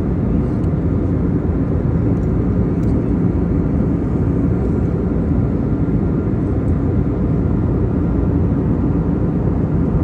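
Steady low roar of an airliner cabin in cruising flight: engine and airflow noise heard from a window seat, even and unbroken.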